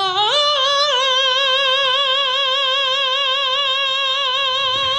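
A man's voice belting one long, high note unaccompanied. It climbs up in two quick steps at the start, then is held with a wide, even vibrato until it cuts off near the end.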